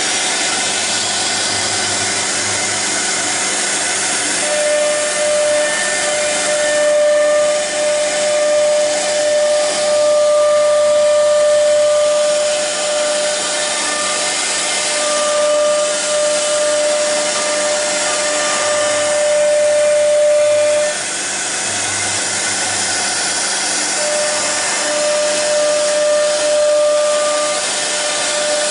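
CNC router's 4.5 kW spindle cutting a curved groove into an MDF board. It makes a loud, steady hiss, with a whining tone that comes and goes.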